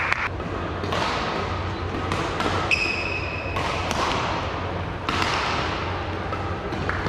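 Badminton rally: racket strikes on the shuttlecock and players' footfalls echoing around a large sports hall, with a short high squeak, like a court shoe, about three seconds in.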